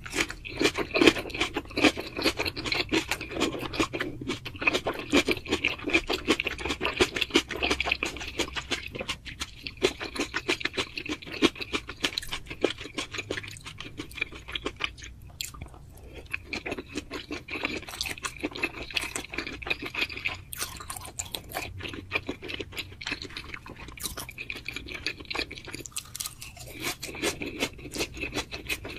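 A person chewing food: a dense, fast run of clicking mouth sounds, with short breaks about halfway through and again a few seconds later.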